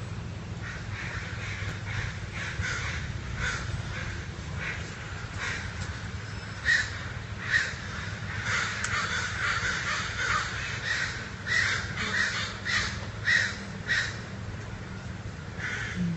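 Crows cawing over and over: a run of short, harsh calls that come thicker and louder from about halfway through, over a steady low hum.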